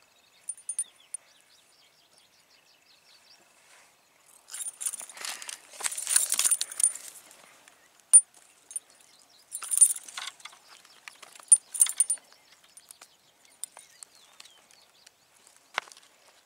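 Intermittent rustling with sharp light clicks and clinks, in bursts about five, ten and twelve seconds in.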